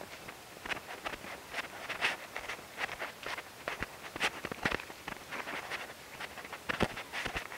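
Footsteps on dry grass and dirt, an irregular run of short rustling steps, close to a body-worn action camera's microphone.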